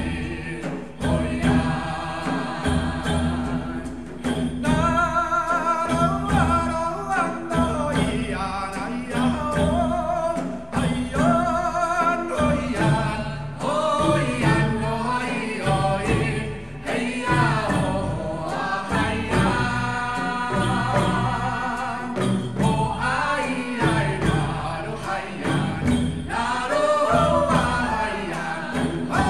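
Music with singing voices over a steady percussive beat.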